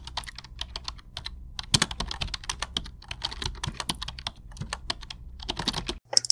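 Fast, irregular typing on a computer keyboard, with many key clicks over a low steady hum.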